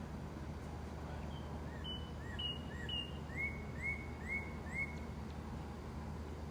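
A bird calling a series of short chirping notes, about two a second, each sweeping upward in pitch, from about a second and a half in to about five seconds in, over steady low background noise.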